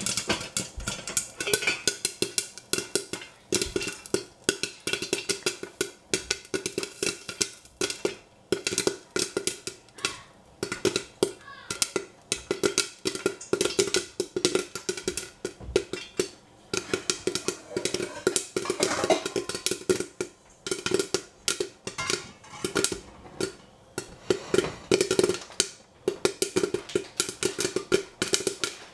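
Popcorn popping in a covered stainless steel pot: dense, irregular pops, several a second, as the kernels reach full popping.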